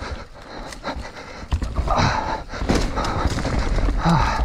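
Mountain bike descending a dirt forest trail at speed: tyres on loose dirt with a fast, irregular clatter of knocks and rattles from the bike over the bumps.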